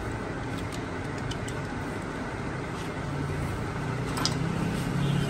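A steady background of motor vehicle noise, with a low engine hum that swells from about three seconds in and a few light clicks.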